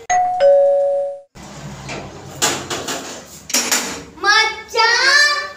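Two-note electronic doorbell chime, a high ding then a lower dong, cut off abruptly after about a second. Then a metal door bolt clacks twice as it is worked, and a child's high, wavering voice follows near the end.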